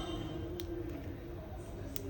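Quiet steady background hum with a couple of faint small clicks from small phone parts being handled and fitted.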